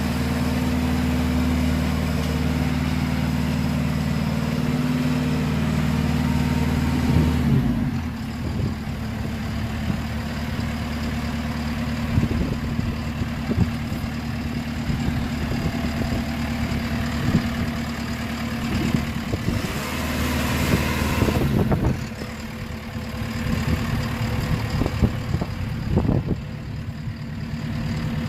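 JCB 270T skid steer's diesel engine running steadily. About seven seconds in, the sound drops and turns uneven with scattered knocks, and a louder spell of noise comes and goes about twenty seconds in.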